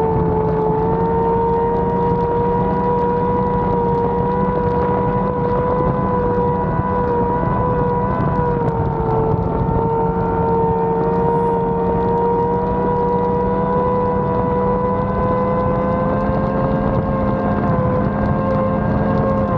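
Racing powerboat engine running at steady revs, a continuous engine drone whose pitch creeps slightly higher and dips briefly near the end.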